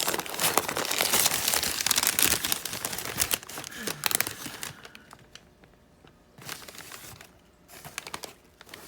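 Packing material crinkling and crumpling as hands dig through a shipping box, dense for the first three seconds or so, then dying down to a few scattered crinkles.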